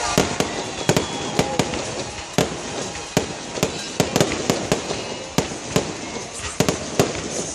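Aerial fireworks display: shells bursting in a rapid, irregular string of sharp bangs, two or three a second.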